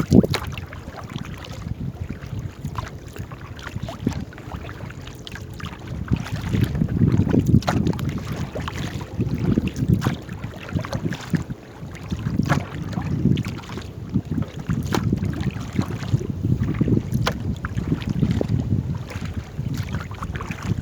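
Wind rumbling on the microphone over water sounds from a small paddled boat, with scattered light knocks.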